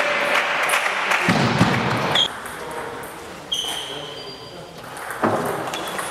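Spectators applauding in a large sports hall, dying away after about two seconds; the hall then goes quieter with a few short high squeaks, and near the end the sharp clicks of a table tennis ball being struck start as a new rally begins.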